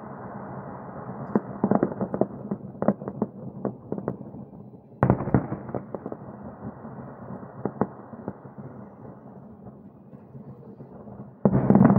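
Fireworks display: a continuous rumble of shell bursts with clusters of sharp bangs and crackling. The volleys suddenly grow louder about five seconds in and again near the end.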